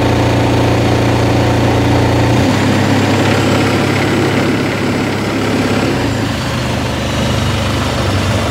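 Long-tail boat engine running steadily at cruising speed, a loud low drone whose tone shifts slightly about two and a half seconds in.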